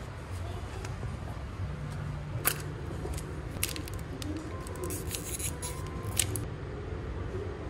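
Small plastic treat packet crinkling and crackling as it is worked open by hand, with a few sharp snaps, the thickest crackle in the second half. A steady low rumble runs underneath.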